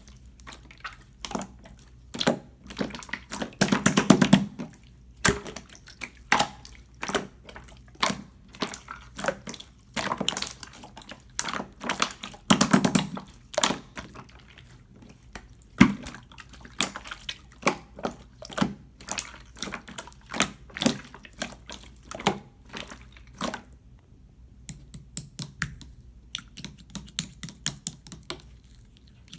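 Clear slime being squished and worked by hand, giving irregular wet clicks and crackling pops that come in dense flurries with brief lulls.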